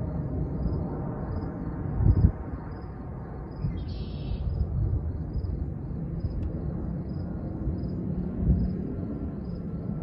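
Outdoor ambience: a steady low rumble of wind and distant traffic, with gusts buffeting the microphone about two seconds in and again near the end. A faint, high insect-like chirp repeats evenly, about three times a second.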